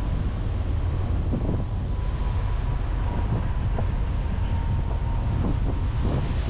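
Wind buffeting the microphone aboard a passenger ferry, over a steady low rumble of the ship and sea.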